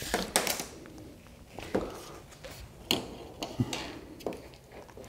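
Quiet handling noises: a few light clicks and taps with soft rustling as a steel tape measure is stretched and held along an LED strip on the back of a TV.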